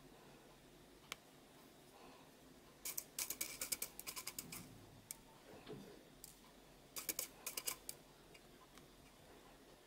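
Rapid crisp clicking of wooden sticks and candy sprinkles against a plastic tray as stretchy candy is pressed and rolled through the sprinkles, in two short bursts about a second long, around three seconds in and again near seven seconds.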